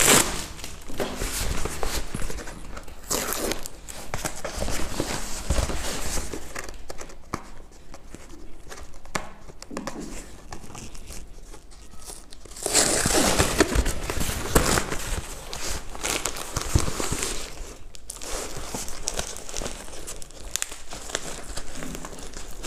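Brown paper parcel wrapping and packing tape being torn and crumpled by hand, an irregular run of crinkles and rips that is loudest for a couple of seconds just past the middle.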